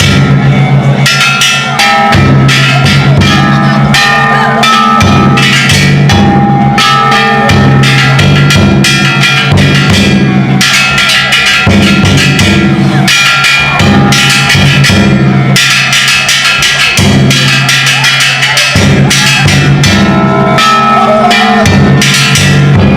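Ishidori bayashi played on a festival cart: a big taiko drum beaten together with several clanging kane hand gongs, very loud and without let-up. The drumming and clanging break off briefly every few seconds and start again.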